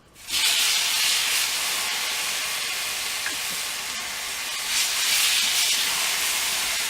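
Steak sizzling in duck fat on a hot flat-top griddle, starting abruptly and loud, with a steady hiss that swells again about five seconds in.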